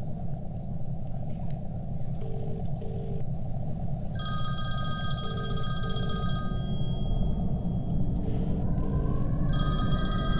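A phone call ringing out: the British double-ring ringback tone, a pair of short low beeps about every three seconds, heard three times. Over it a mobile phone's electronic ringtone rings, starting about four seconds in, breaking off around seven seconds and starting again near the end, above a low steady rumble.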